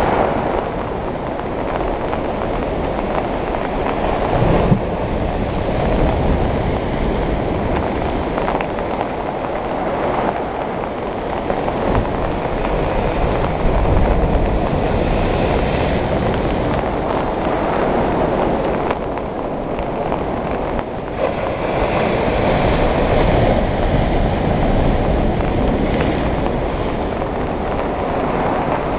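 Sea waves breaking on a sandy beach: a continuous rushing wash that swells and eases, louder around the middle and again about three-quarters of the way through, with low wind rumble on the microphone.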